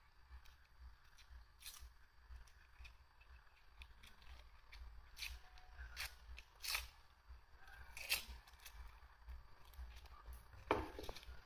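Kitchen knife peeling the dry, papery skin off a red onion: a few faint crisp snips and crackles spread apart, then a knock on the wooden cutting board near the end.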